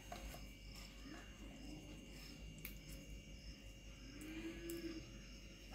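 Faint, regular high chirping of crickets over quiet room tone, with two faint tones that rise and fall, about a second in and again near the end.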